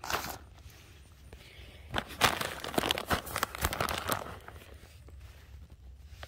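Paper seed bag crinkling and rustling as it is handled, in a dense, irregular run of crackles starting about two seconds in and fading out after a couple of seconds.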